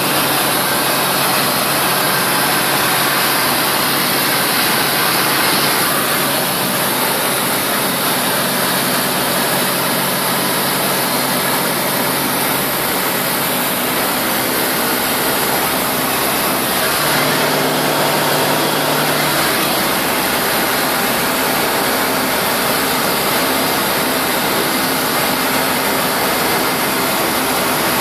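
Tecnam P92 ultralight aircraft in cruise flight, heard from inside the cabin: the engine and propeller drone steadily under a loud rush of airflow, with the hum's pitch shifting slightly about two-thirds of the way through.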